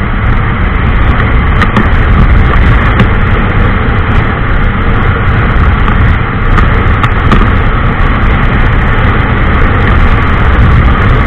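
Honda SP 125's single-cylinder engine running at speed on a top-speed run, under a loud, steady rush of wind on the microphone.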